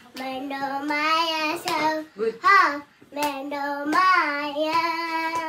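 A young girl singing a song in a child's voice, long drawn-out notes that slide up and down in pitch, broken by short pauses.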